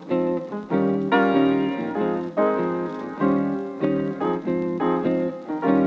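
Background music: piano-like keyboard playing repeated chords in a steady rhythm.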